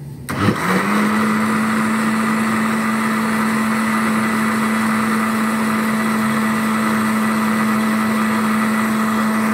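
Electric kitchen blender (mixer-grinder) motor starting about a third of a second in, spinning up within a second to a steady whine and running at full speed as it blends a liquid drink mixture of milk, condensed milk and coconut.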